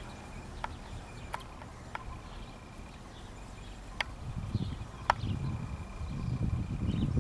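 Outdoor ambience: a low rumble that grows louder in the second half, with a handful of sharp short clicks.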